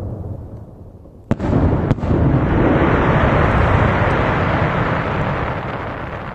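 Aerial firework shells bursting: two sharp bangs about a second and two seconds in, then a long rolling boom that slowly dies away.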